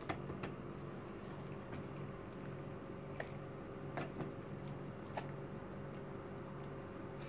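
Small toy food-processor motor running with a low steady hum and a faint regular pulse, while white glue is squeezed from a plastic squeeze bottle into its bowl, giving a few short squishy clicks.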